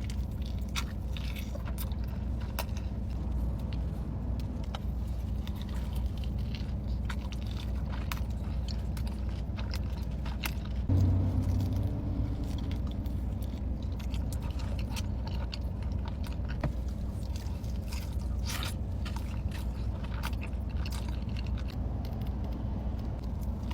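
Close-miked eating sounds: biting and chewing with many small crunchy, wet clicks over a steady low hum. About halfway through there is a brief low thump.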